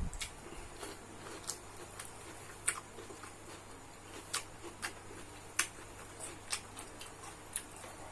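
Close-miked eating sounds: irregular short, sharp mouth clicks and smacks of someone chewing fried rice, a couple each second, over a faint steady low hum.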